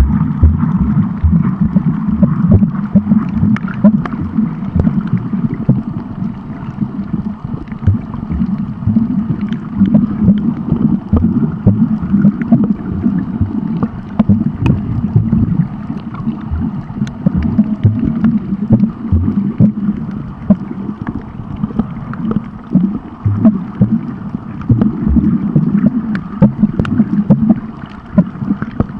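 Underwater sound from a camera held below the surface: a loud, steady, muffled rumble and gurgle of moving water, with scattered faint clicks throughout.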